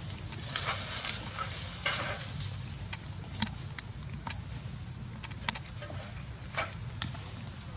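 Dry leaves and grass rustling and crackling in scattered sharp clicks as a baby macaque picks through them and handles a dead leaf, over a steady low rumble.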